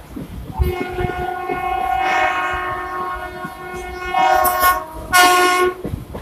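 Train horn sounding several tones at once: one long blast of about three seconds, then two shorter blasts, over the low rumble of the train running.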